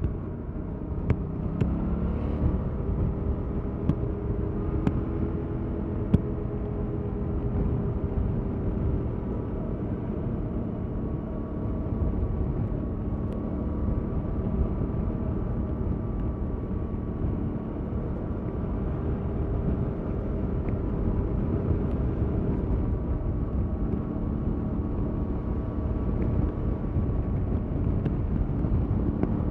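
2021 Yamaha MT-07's 689 cc parallel-twin engine running through its stock exhaust while riding. The engine note rises about two seconds in, then holds fairly steady with small rises and falls. A few sharp clicks come in the first six seconds.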